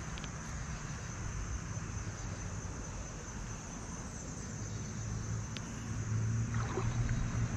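Outdoor creek-side ambience: a steady low rumble of wind on the microphone under a thin, steady high insect drone. A low hum swells near the end.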